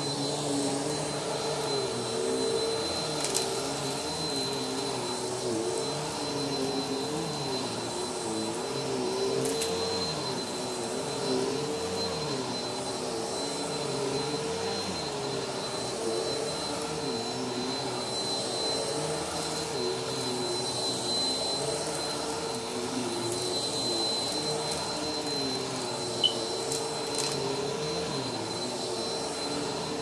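Upright vacuum cleaner running steadily on carpet: a constant motor hum with a thin high whine, its lower pitch wavering a little as it is worked across the pile. Two brief clicks, about 3 seconds in and near the end.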